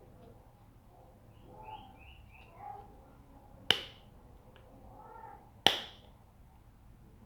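Two sharp plastic snaps about two seconds apart, as the wheels of a plastic toy tractor are pressed onto their axles. Faint animal calls sound in the background.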